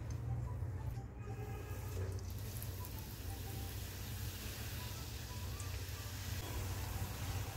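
Hot ghee sizzling in an iron kadhai as raw gujiyas are deep-fried. The hiss rises about two seconds in, when fresh gujiyas go into the ghee, over a low steady hum.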